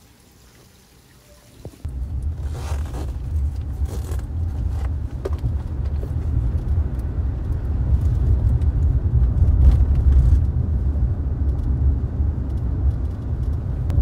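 Car driving: a steady low road rumble that cuts in suddenly about two seconds in, with a few light clicks over it.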